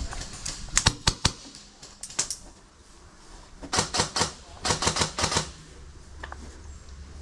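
Airsoft guns firing in several short bursts of rapid, sharp snapping shots, the loudest about a second in, with quieter pauses between bursts.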